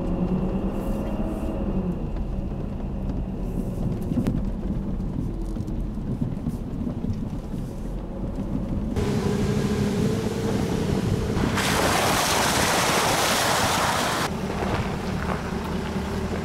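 A Jeep's engine running at low speed over rough ground. A loud rushing noise sets in about nine seconds in, grows stronger, and drops away a couple of seconds before the end.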